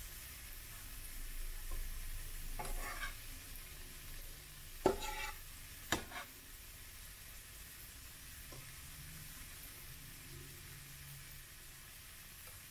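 Pancake frying in oil with a faint, steady sizzle. A slotted metal spatula clicks sharply against the pan twice, about a second apart, midway through.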